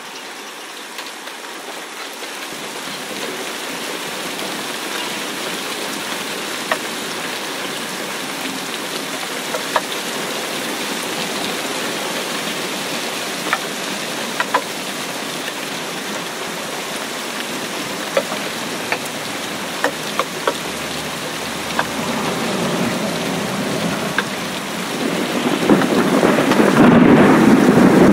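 Steady rain falling on a shallow puddle and wet grass, with occasional sharp taps of single drops. Near the end a loud low rumble builds up under the rain.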